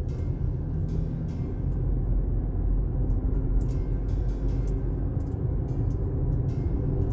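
Inside a 2021 Toyota RAV4 driving on a wet road: a steady low rumble of road and tyre noise with a faint hiss above it.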